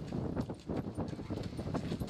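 Siberian husky's paws and claws tapping and scuffing irregularly on concrete.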